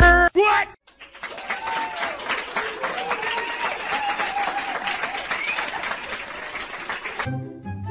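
A crowd applauding and cheering. It starts about a second in and cuts off suddenly near the end, the way a dubbed-in applause effect does. Music ends just at the start.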